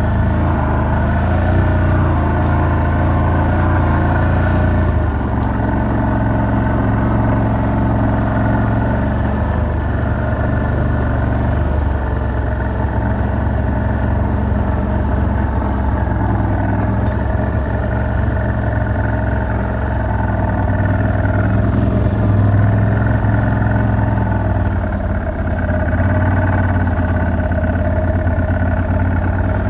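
Vehicle engine running steadily while driving, its pitch shifting a few times as speed and gears change.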